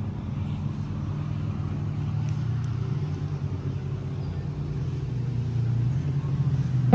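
A motor engine running with a steady low hum, growing gradually louder as it comes nearer.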